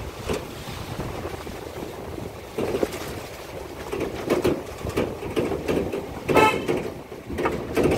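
Car running slowly over a rutted dirt track, heard from inside the car, with uneven bumps and knocks. About six seconds in comes one short horn toot.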